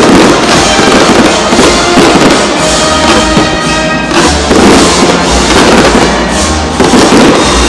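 Fireworks bursting repeatedly, several loud bangs a couple of seconds apart, over loud music playing throughout.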